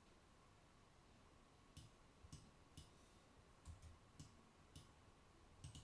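Computer mouse clicking: about eight sharp, irregular clicks starting about two seconds in, over faint room hum.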